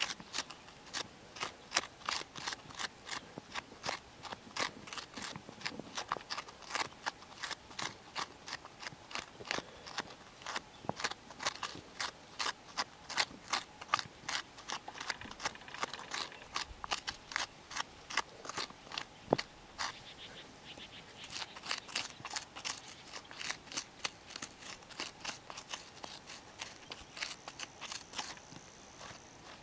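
Hand tool digging repeatedly into stony soil: sharp crunching strikes, two or three a second, easing off about twenty seconds in before picking up again.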